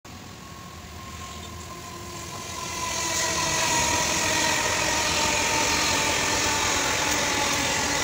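Whoosh KCIC400AF high-speed electric train passing close by: a rush of air and wheel noise that builds over the first three seconds, then holds steady and loud as the carriages go past, with a whine that falls slightly in pitch.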